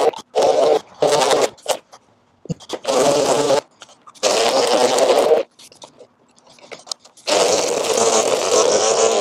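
String trimmer running in repeated short bursts as it cuts grass along the lawn edge, its motor starting and stopping sharply about five times, with the longest run near the end.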